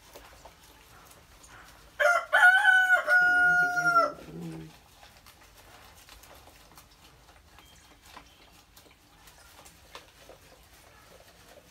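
A rooster crows once, about two seconds in. The crow wavers at first, then holds one high note for about a second before trailing off lower. Faint small ticks and rustles sound before and after it.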